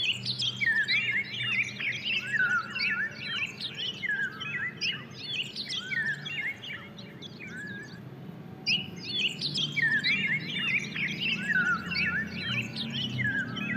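A flock of small birds chirping and twittering in quick, overlapping calls, thinning out for a couple of seconds about halfway through and then starting up again, over a faint low hum.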